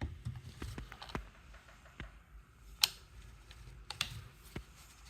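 Scattered clicks and knocks of handling a cordless right-angle die grinder, the sharpest about three seconds in, with no motor running. The tool is quite non-functional.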